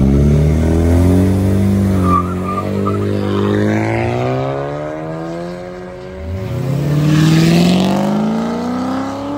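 Two cars launching side by side in a street race, engines revving hard and climbing in pitch as they pull away, with a short squeal about two seconds in. Around six seconds in, another car engine revs up close by, its pitch rising steadily.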